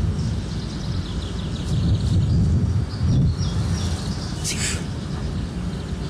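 Outdoor ambience of small birds chirping over a steady low rumble, with a short hiss about four and a half seconds in.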